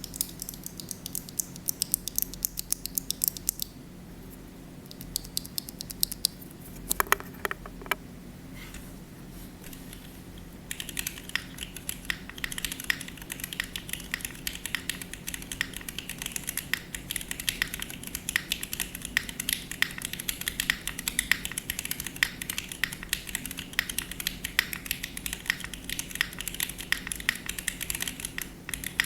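TKD Cycle7 mechanical keyboard with vintage Cherry MX Black linear switches (filmed, 60 g springs) on an aluminium plate with no case foam, being typed on. Short bursts of keystrokes with pauses, a few deeper strokes about seven seconds in, then continuous fast typing from about eleven seconds on.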